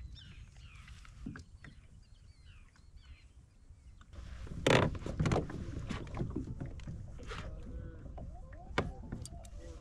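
Kayak out on the water: paddle and water sounds with a low rumble, then from about halfway through a few sharp knocks against the hull, the loudest just under five seconds in.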